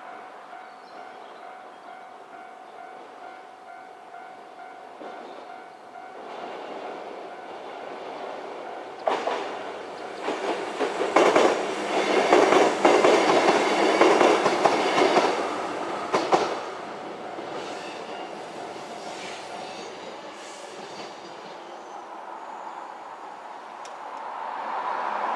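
A 103 series 3500-subseries electric train passes over a level crossing, its wheels clattering over the rail joints loudly for about seven seconds. The crossing's warning bell rings steadily before the train arrives and again after it passes, then stops.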